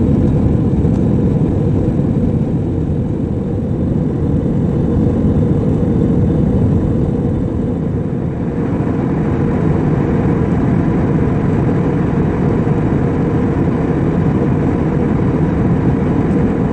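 Steady cabin roar of a jet airliner in flight, engine and airflow noise heard from a window seat as it climbs out of the cloud. The noise is deep and even, and a little more high hiss joins about halfway through.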